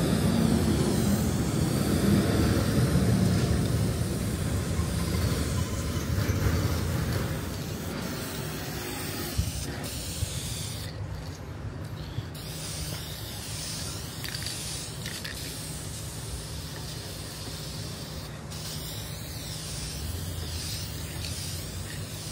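Aerosol spray can hissing as it sprays dye onto carpet floor mats, in long strokes. The spray is louder for the first several seconds and breaks off briefly about eleven seconds in.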